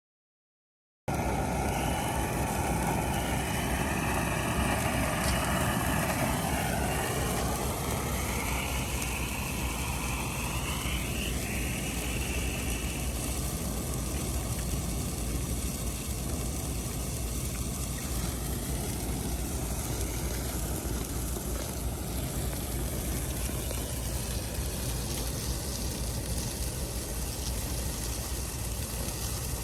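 Handheld colour 'magic wand' firework burning with a steady, loud hiss that starts abruptly about a second in. A wavering higher tone runs over the first dozen seconds, then the hiss goes on alone.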